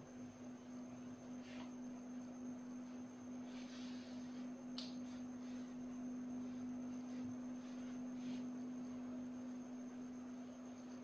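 Steady low hum with a fainter high whine above it, over quiet room tone. A few soft rustles and a single sharp click come about four to five seconds in.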